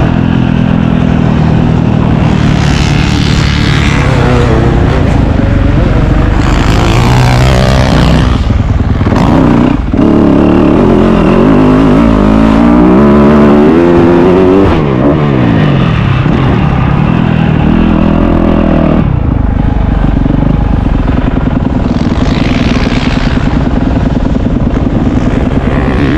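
Dirt bike engine revving, its pitch rising and falling repeatedly as the throttle opens and closes, with a brief drop in level about ten seconds in.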